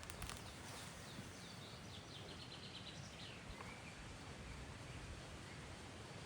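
A songbird singing one phrase of about three seconds, a quick run of high repeated notes, over steady background noise.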